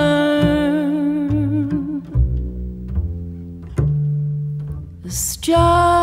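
Slow jazz ballad music: a double bass under a held, wavering melody note. The melody stops about two seconds in, leaving the bass alone with a few sharp plucked notes, and it comes back near the end.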